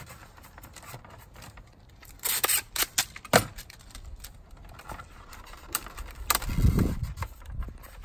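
Duct tape being pulled off the roll and torn: a short ripping hiss a couple of seconds in, then a few sharp clicks and crackles, with a low rumble near the end.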